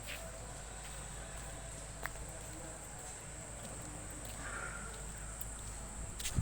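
Quiet outdoor ambience: a steady high hiss over a low rumble, with a faint click about two seconds in and a brief higher sound a little later.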